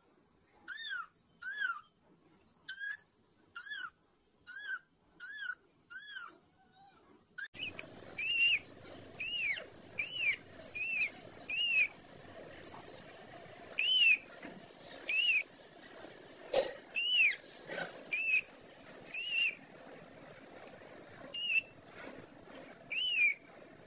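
A young kitten mewing over and over: short, high-pitched mews that rise and fall, coming about once a second with a few pauses. From about a third of the way in, a low background hiss runs under the mews.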